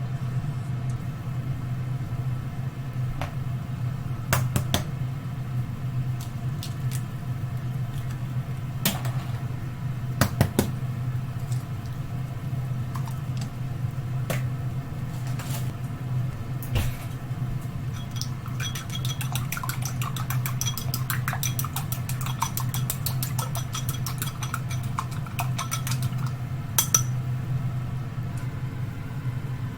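Kitchen utensils clinking and knocking against pots and dishes, with a quick run of light rapid clinks in the second half, over a steady low hum.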